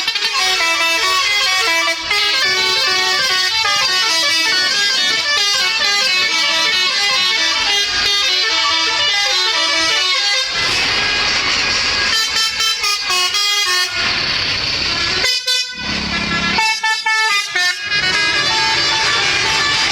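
Telolet horns on a tour bus: a set of multi-note air horns playing a quick jingle of changing notes. About ten seconds in the tune gives way to a rushing noise, then several short broken blasts, and the horn notes return near the end.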